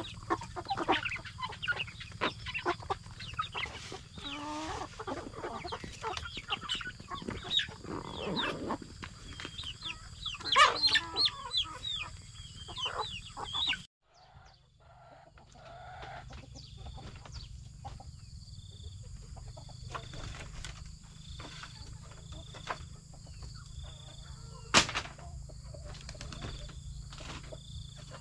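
Chickens clucking and calling. Partway through the sound changes abruptly to a quieter background with a high chirp repeating about once a second and a single sharp click near the end.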